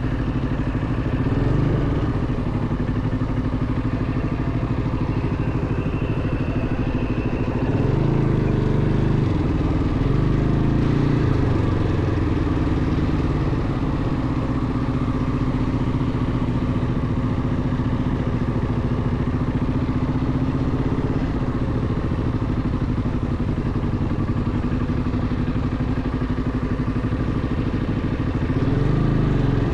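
ATV engine running while riding a dirt track, the engine note rising and falling with the throttle about eight to eleven seconds in and again near the end.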